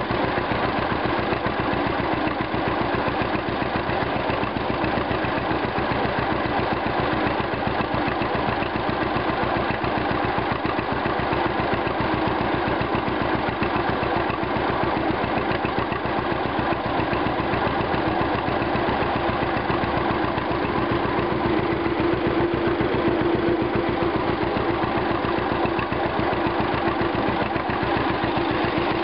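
1951 John Deere Model A two-cylinder tractor engine running steadily as the tractor drives along, its even exhaust beat heard close up from the seat.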